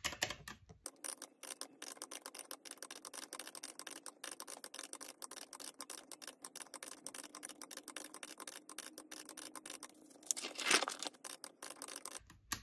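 Quick, steady clicking of a calculator's round, typewriter-style keys as a column of savings figures is added up. Near the end a sheet of paper rustles as a planner page is turned.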